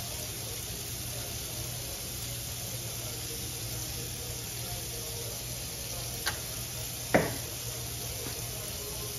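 Kitchen faucet running a thin stream of water into a stainless steel sink. Two sharp knocks come near the end, a little under a second apart, and the second is louder and rings briefly.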